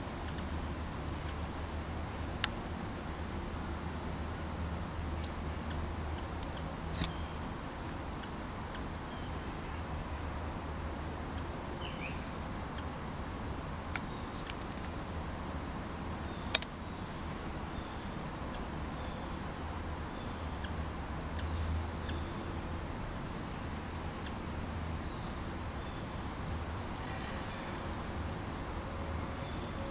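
A female hummingbird's little squeaky chips, short and high, coming in scattered runs while she drinks at a nectar feeder. Under them a steady high-pitched insect trill, with a few sharp clicks.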